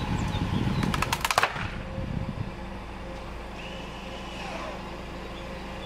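A wooden board cracking and snapping under a car's tyre: several sharp cracks in quick succession about a second in, as it gives way under the car's weight. A low rumble stops right after the cracks.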